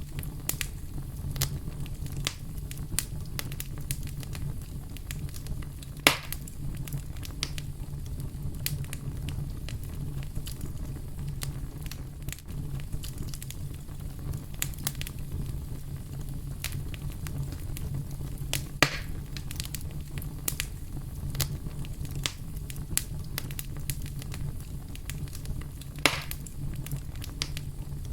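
Fireplace fire crackling: a steady low rumble under many small snaps, with three louder pops spread through it.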